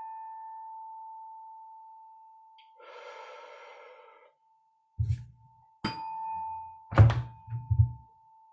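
A struck bell-like tone ringing and slowly fading away, struck again about six seconds in and once more about seven seconds in, with soft low knocks around the strikes.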